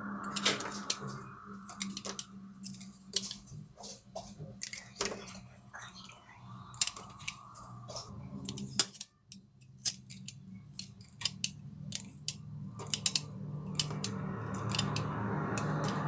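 Utility knife blade carving a bar of soap: an irregular run of sharp, crisp clicks and crackles as thin curls and chips snap away. A short pause comes just before halfway.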